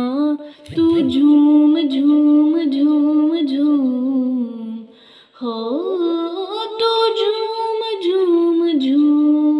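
A woman singing unaccompanied into a handheld karaoke microphone: long held, wordless notes with small melodic turns, partly hummed, broken by a short breath pause about five seconds in.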